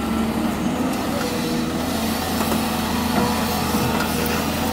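Heavy diesel engine of construction machinery running steadily, with a few faint knocks.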